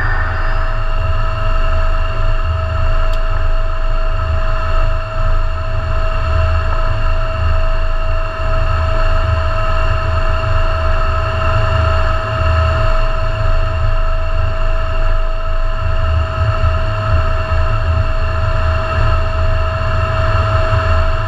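F-16 cockpit noise with the jet on the ground: a steady whine of several held tones over a low engine rumble, unchanging in loudness throughout.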